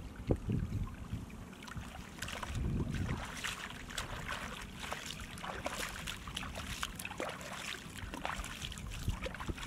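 Water sloshing and splashing, with many small scattered clicks and ticks over a low rumble of wind on the microphone.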